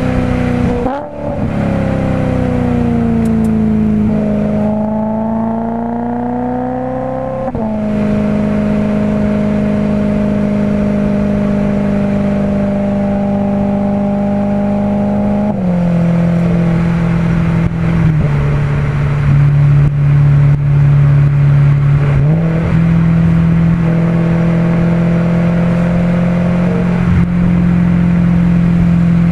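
BMW E90 M3's 4.0-litre S65 V8 through a Meisterschaft GT exhaust, heard from outside the moving car. The note sags, then rises under throttle and drops sharply at a gear change about seven seconds in. It then holds mostly steady at cruise, stepping down in pitch a few times in the second half.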